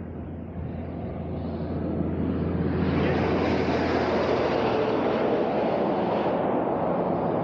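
Heavy truck pulling two trailers passing on the highway: its tyre and engine noise swells as it approaches and is loudest as it goes by close to the microphone.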